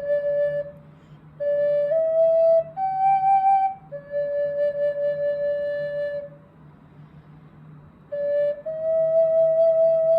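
Solo flute playing a slow melody of long held notes that step up and down, with a short breath pause near the start and a longer one about six seconds in; the last note, held to the end, wavers with vibrato.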